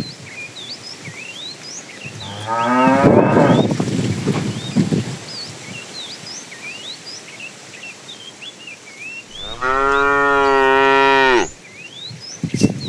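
Cattle mooing twice: a shorter moo rising in pitch a couple of seconds in, then a longer, louder, steady moo near the end. Small birds chirp throughout.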